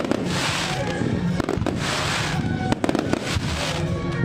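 Aerial fireworks going off in a dense run of bangs and crackles, with hissing between the reports.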